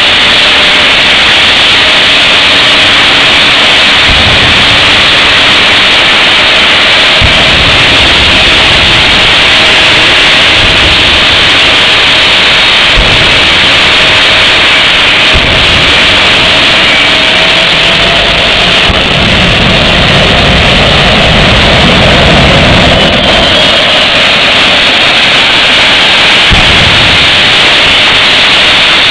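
Jet turbine engine mounted in a minivan running, loud and steady with a faint held tone; deeper rumbles come and go every few seconds.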